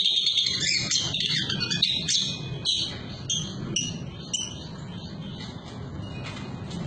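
A small caged songbird singing: a run of rapid high chirps and trills, then a string of short sharp chirps about twice a second that fade after about four and a half seconds.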